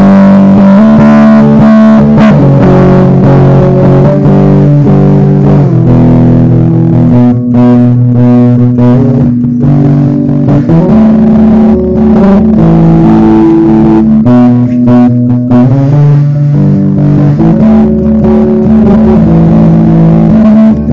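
Electric bass played loudly through a Hartke LH500 head and Hydrive 410 cabinet, sustained low notes changing every second or two. The phone's microphone is overloaded, so the sound comes through distorted.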